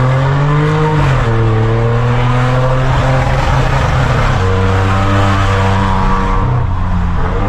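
Loud exhaust note of a Volkswagen Virtus 1.0 TSI three-cylinder turbo engine running through a stainless downpipe and a Y catback with no rear muffler. The revs climb, drop about a second in and hold fairly steady, then dip and rise again near the end.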